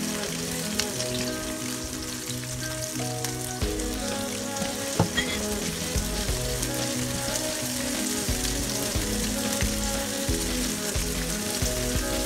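Whole shallots sizzling in hot oil in a frying pan, a spatula scraping and stirring them, with one sharp knock about five seconds in. Background music plays under the sizzle.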